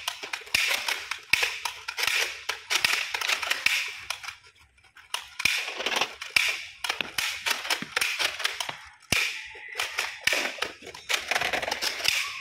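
Rapid gunfire sound effects: many shots in quick succession, with a short lull about four to five seconds in before the firing resumes.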